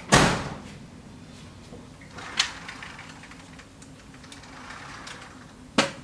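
A door shutting with a heavy thud that rings on briefly, then a softer knock about two seconds later and a sharp click near the end.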